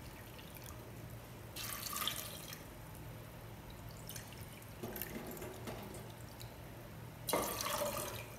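Water poured from a glass jar into a glass bowl and tipped into an aluminium pressure cooker over soaked chickpeas, in three short splashing pours, the last the loudest.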